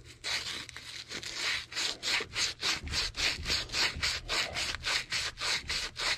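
Copper refrigerant line joint being scrubbed clean with an abrasive cloth strip in quick back-and-forth strokes, about four a second, to prepare it for soldering.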